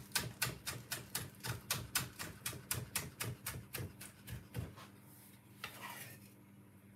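Chef's knife rapidly chopping chives on a wooden cutting board, a fast even tapping of about five strokes a second that stops about four and a half seconds in.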